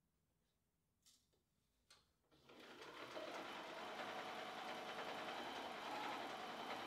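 Electric sewing machine stitching steadily through a quilt for about four seconds, after two small clicks, then stopping.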